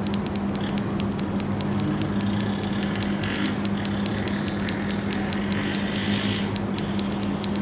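Small tactile push-button switch pressed rapidly over and over, a fast even run of small clicks at about seven a second, over a steady low hum. The button is being worked to clear carbon from its contacts after spraying cleaner into it.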